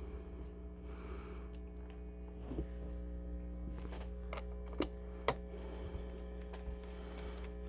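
Steady electrical hum from a stereo speaker, with a few small sharp clicks, the loudest two close together about five seconds in.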